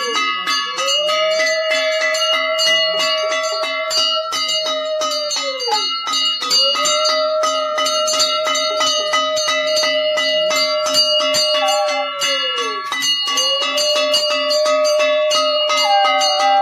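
A brass puja hand bell rung continuously with rapid, even strokes, while a conch shell is blown in long held blasts, each dipping in pitch as it ends: two full blasts and a third starting about two-thirds of the way in.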